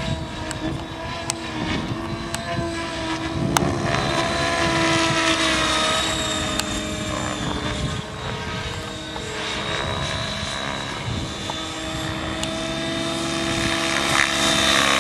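Electric Trex 700 DFC radio-controlled helicopter flying overhead: the steady whine of its motor and rotor blades, with a pitch that wavers up and down as it manoeuvres. A few sharp clicks come in the first few seconds.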